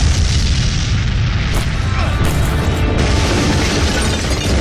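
Explosion sound effect in a burning room: a heavy continuous low rumble with several sharp cracks in the middle, mixed with background music.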